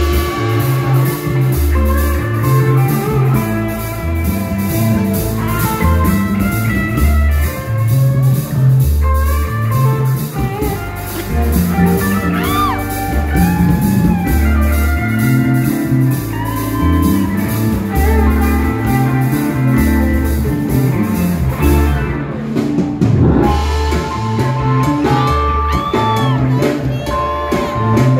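Live band playing an instrumental groove on electric guitars, keyboard and drum kit, with a steady bass line and kick drum beneath. The cymbal ticking stops about three quarters of the way through while the bass and guitars carry on.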